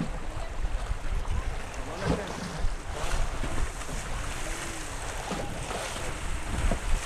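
Wind buffeting the microphone over choppy river water slapping against a concrete seawall, with faint voices in the background.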